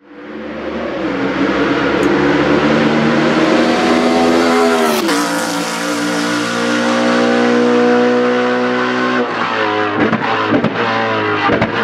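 Race car engine at high revs, its pitch falling sharply about five seconds in and then holding steady, with several sharp cracks near the end.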